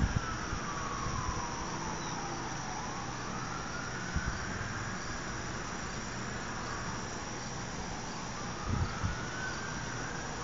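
Outdoor tornado warning siren wailing in the distance, its pitch slowly falling over the first few seconds, then slowly rising again to the end.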